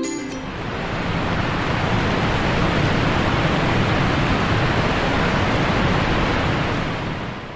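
A steady rushing noise with no pitch, swelling in after the start and fading out near the end.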